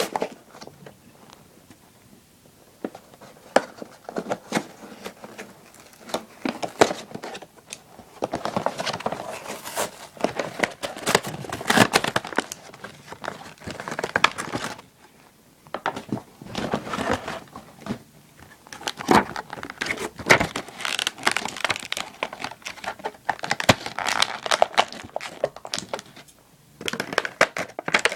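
Plastic and cardboard packaging of a Mattel WWE action figure being handled and opened by hand: irregular bouts of crinkling and tearing with sharp clicks and snaps, broken by brief quieter pauses.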